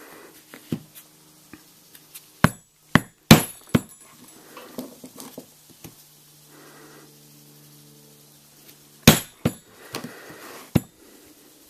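A poly maul strikes a steel hand punch, driving holes through a leather belt strap. There are four sharp knocks in quick succession about two and a half seconds in, then two more about nine seconds in and a lighter one shortly after.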